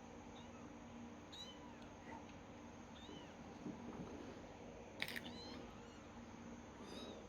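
Kitten meowing: short, faint, high-pitched mews every second or two, with a louder cluster of mews about five seconds in, over a faint steady hum.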